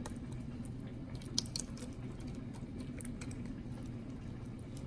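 Small wet squishing and clicking sounds as a fork prods juicy cooked chicken wings in their pan, with one sharper click about a second and a half in, over a steady low hum.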